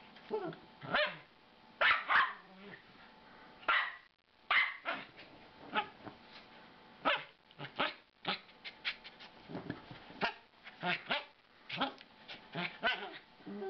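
Miniature American Eskimo puppy barking in short, irregular yaps and growling while it play-bites at a hand.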